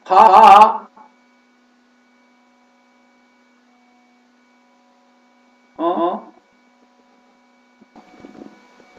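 Steady electrical hum from a computer audio loopback setup, with a few faint steady tones above it. A short, loud burst of a man's voice opens it, and a quieter voice burst comes back about six seconds in, echoed through the loopback.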